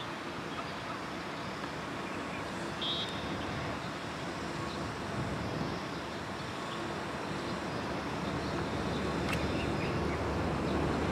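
Steady outdoor background noise, a low rumble and hiss like distant traffic, growing a little louder toward the end. A faint, brief high chirp comes about three seconds in.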